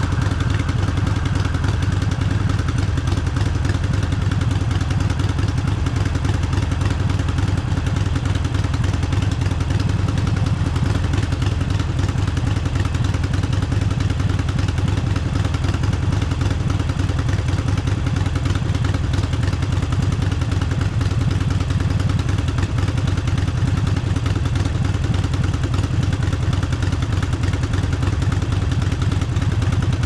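Harley-Davidson Forty-Eight's air-cooled V-twin, fitted with an aftermarket exhaust, idling steadily at a standstill.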